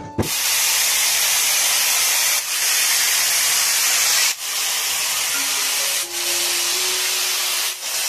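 Angle grinder cutting through green cage mesh: a loud, steady hiss that dips briefly about every two seconds.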